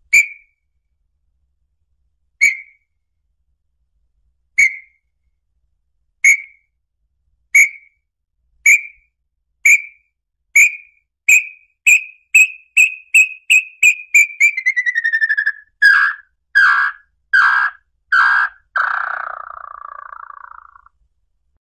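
Small-billed tinamou (lambu pé vermelho) song: clear whistled notes, widely spaced at first, that come faster and faster, then slide lower into a few stronger, lower notes and end in a short trill near the end.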